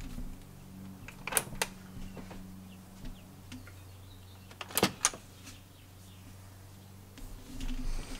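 A few sharp clicks and knocks in two clusters, about a second in and about five seconds in, over a low steady hum.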